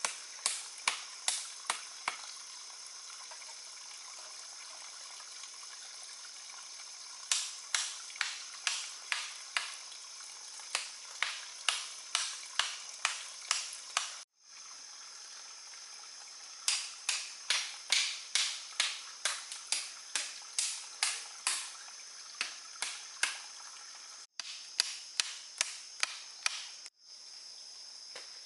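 Runs of sharp, steady knocks, about two a second, like tool strikes on wood, over a steady high insect drone; the runs stop and start at abrupt cuts.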